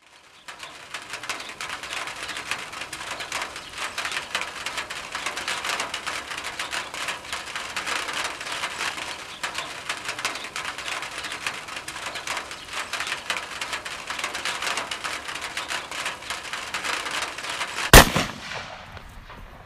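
Steady rain falling and dripping, a dense crackle of small drops, then a single loud gunshot about eighteen seconds in that rings out briefly as the rain sound fades away.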